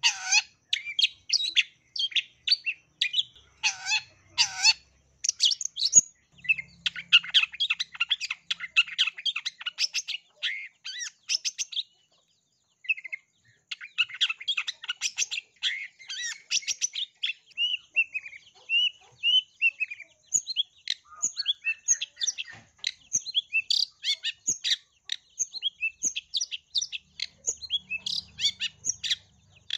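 Long-tailed shrike singing a fast, varied chattering song of short notes and glides, full of mimicked calls of other birds, with a pause of about a second midway.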